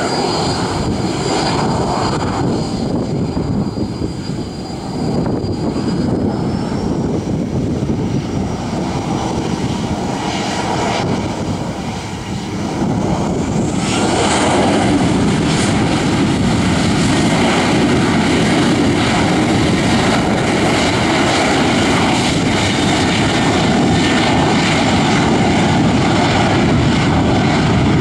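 Boeing 737-800's CFM56-7B turbofan engines whining at low power, then spooling up about halfway through with a rising whine into a louder, steady rumble: the engines coming up to takeoff thrust as the takeoff roll begins.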